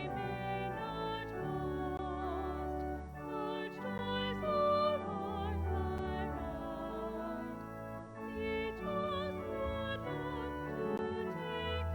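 Sacred music: singing with a marked vibrato over held instrumental chords, the notes changing about every half second.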